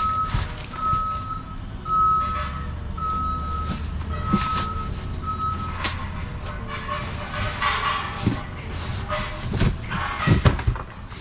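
A vehicle's reversing alarm beeping steadily, about seven beeps over the first six seconds, over a low engine rumble. Near the end, cardboard boxes scrape and knock as they are lifted and shifted.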